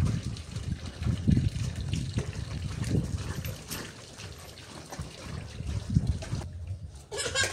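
Water splashing and trickling as clothes are scrubbed by hand in a concrete washing sink, in uneven sloshes that die down near the end.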